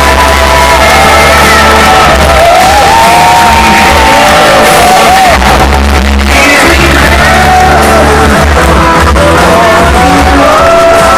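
Loud music over the public address with a crowd cheering, shouting and whooping, some voices singing along.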